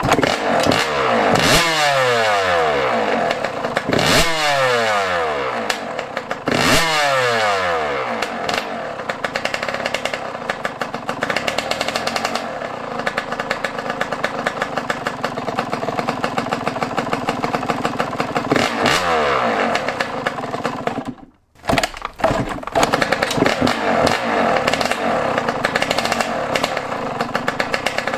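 Yamaha YZ125 two-stroke single-cylinder engine starting up, then blipped through several sharp revs that each fall back to a fast, crackly idle while its carburetor is being tuned for throttle response. About three-quarters of the way through it cuts out for an instant and catches again.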